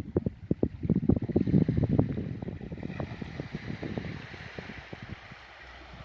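Wind buffeting the microphone in irregular low rumbling gusts, easing off over the last second or so.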